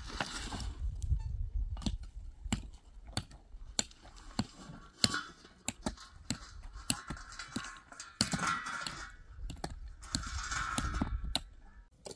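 Irregular clicks and knocks, with brief scraping or rustling noises twice in the second half.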